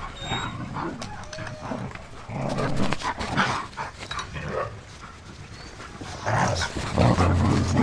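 Several Siberian huskies running loose in a snowy kennel yard, giving short barks and calls on and off, loudest near the end.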